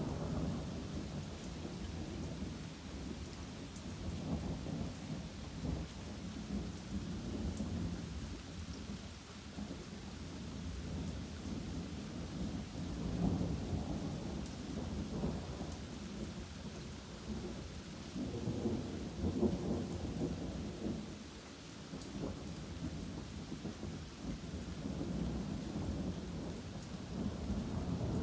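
Thunder rumbling almost without a break over steady rain. The rumble swells louder about halfway through and again a few seconds later.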